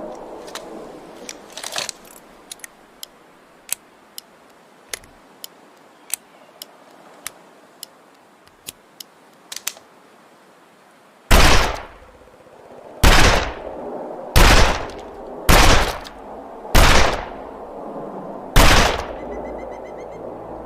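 Smith & Wesson Model 27 .357 Magnum revolver: a string of light clicks, then six loud shots fired about one to two seconds apart.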